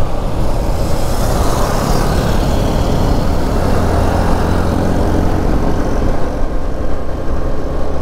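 Yamaha MT-15 motorcycle's single-cylinder engine running steadily on the move, a low drone under a broad rush of wind noise. The hiss grows brighter for a few seconds about a second in.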